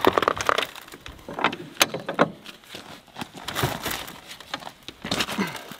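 Hi-Lift jack being worked under a heavy wooden shed: irregular metallic clacks and knocks from the jack's climbing mechanism on its steel bar.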